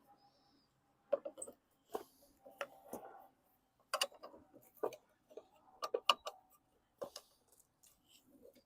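Irregular light clicks and knocks as a newly mounted lawn mower wheel is handled and turned, its tread knocking against the work table.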